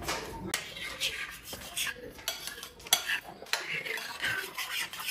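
Metal spoon scraping and clinking against a ceramic bowl of soft maize porridge, in short irregular strokes.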